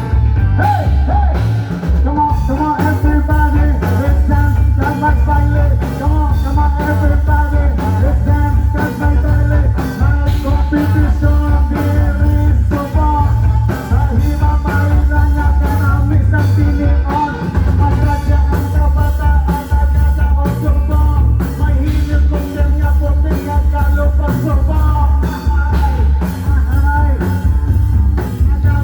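Rock music with a singer over a heavy, steady bass and drum beat.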